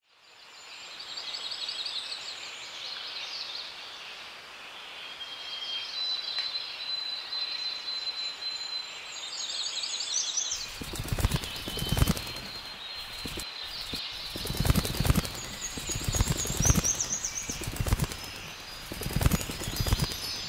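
High, rapidly pulsed chirping trills and a held high whistle over a faint hiss. About halfway through, a run of loud, irregular rustling thumps takes over, with thin high ringing tones above them.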